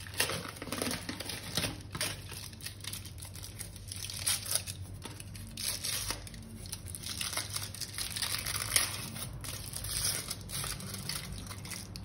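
Plastic chocolate-bar wrapper crinkling and tearing as a bar is unwrapped, in irregular rustling crackles.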